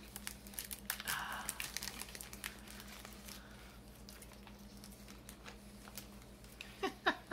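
Chocolate bar wrapper crinkling as it is opened by hand: a quick run of sharp crackles for the first few seconds that then thins out to a few quieter rustles.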